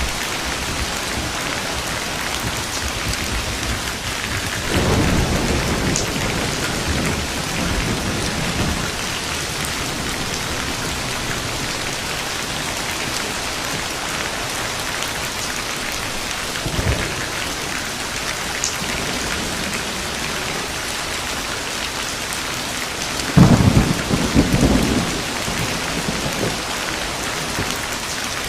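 Steady heavy rain with rolls of thunder: a rumble about five seconds in, a brief one midway, and the loudest, sharp-edged thunderclap with rumbling about five seconds before the end.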